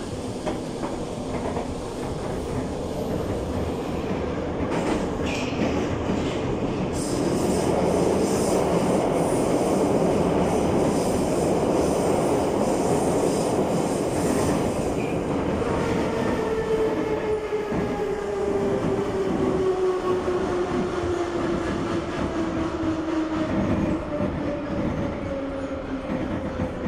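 81-717 metro car running through a tunnel, a loud rumble of wheels and track with a high hiss that peaks in the middle. From about two-thirds of the way in, a whine from the traction motors and gearing falls steadily in pitch as the train slows to a stop at a station.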